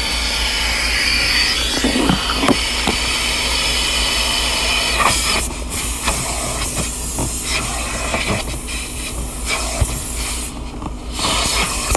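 Steady hissing rush of car-wash equipment, with scattered knocks and clicks; the hiss briefly thins about ten and a half seconds in.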